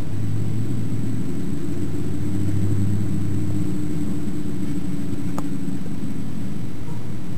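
A steady low motor-like drone with a pitched hum that drifts slowly in pitch, and a single faint click about five and a half seconds in.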